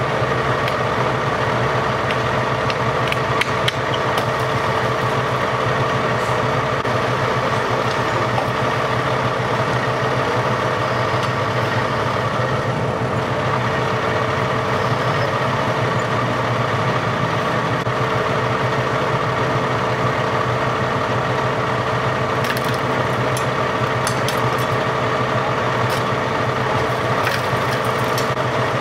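Engine idling steadily, with several sharp clicks in the last few seconds.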